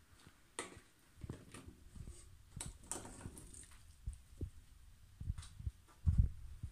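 Cut fruit tipped from a bowl into a stainless steel saucepan: pieces land with a scatter of soft knocks, and a louder low thump comes about six seconds in.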